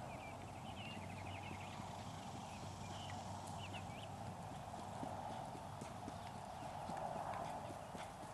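Faint hoofbeats of a ridden Peruvian Paso horse.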